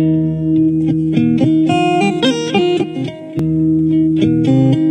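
Background music: a plucked guitar melody over held low notes.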